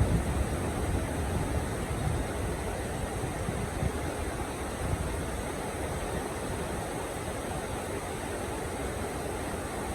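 Heavy rain falling in a steady hiss, with a low rumble that is strongest at the very start.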